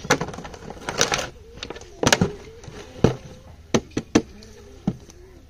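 A series of sharp, irregular knocks and taps, about nine in five seconds, some in quick pairs.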